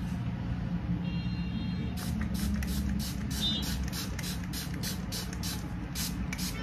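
A fine-mist pump spray bottle is worked over and over, giving short hissing spritzes in quick succession, about three or four a second, starting about two seconds in. A steady low hum runs underneath.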